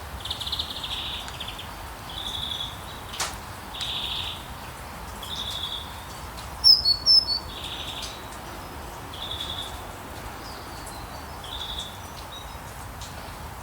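Birds calling: a short buzzy call repeated about every two seconds, with a quick burst of louder, sharper high chirps about halfway through, over a steady soft hiss.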